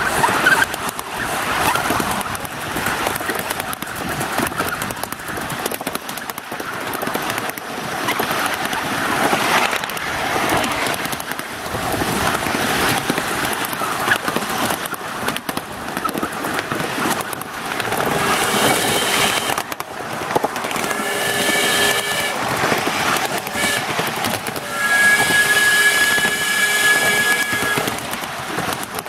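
Ride-on miniature railway train clattering along its track, with the locomotive's whistle blown three times in the last third, a chord of several steady pitches, the third blast the longest.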